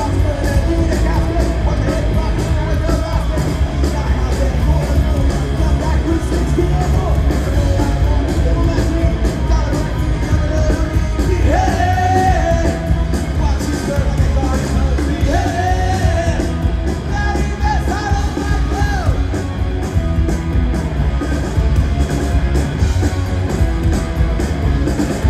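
Punk rock band playing live through a PA, heard from the audience: drums, distorted electric guitar and bass, with shouted singing that holds longer notes about halfway through.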